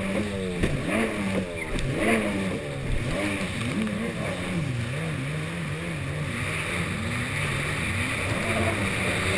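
Yamaha SuperJet stand-up jet ski's engine running under way, its pitch rising and falling again and again as the throttle is worked over the water, with the rush of spray along the hull.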